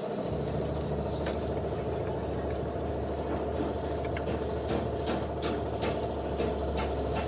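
An engine running steadily at a constant speed, with a few faint clicks scattered over it.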